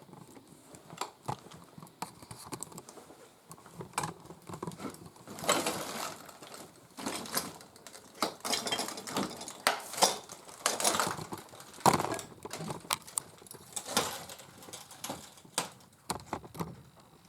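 Irregular clicks, taps and rustles of close handling and movement, as a camera is held up and worked near the microphone. They are thickest through the middle of the stretch.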